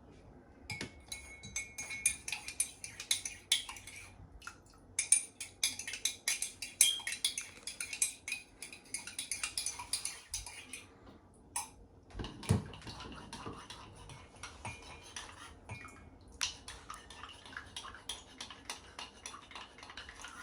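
A spoon stirring honey into tea in a cup, clinking rapidly against the cup's sides with a ringing note. It comes in four spells of a few seconds each, with short pauses between.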